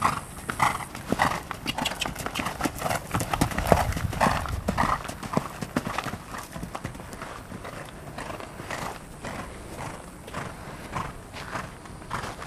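Hoofbeats of a cantering horse on sand arena footing, louder for the first few seconds and then fainter as the horse moves away.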